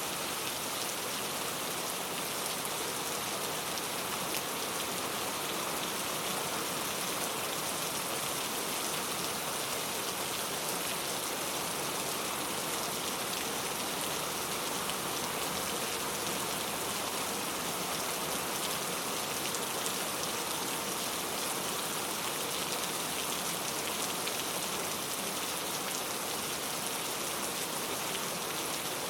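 Steady rain falling on a surface, with dense, fine pattering of drops and no thunder.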